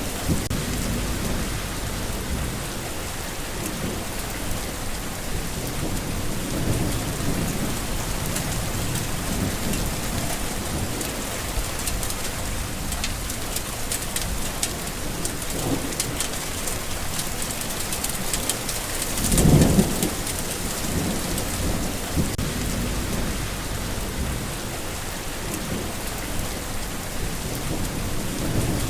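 Steady rain falling, an even hiss with a low rumble underneath. About twenty seconds in, a short, louder low rumble rises and fades within about a second.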